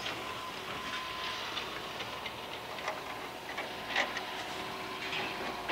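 Light clicks and taps of hands working a metal cover plate fitted over a steel boat's cabin window, the clearest tap about four seconds in, over a steady background hum.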